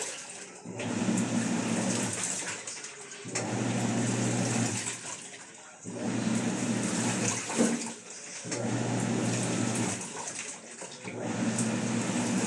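Panasonic 12 kg washing machine in its wash cycle: the motor hums and churns the water and clothes in strokes of about a second and a half, with a short pause between each as the drum or agitator reverses, about five strokes.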